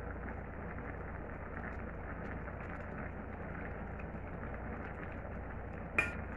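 Coconut-milk stew simmering in a stainless steel pot on a gas burner, a steady fine bubbling crackle. About six seconds in, a metal ladle clinks once against the pot.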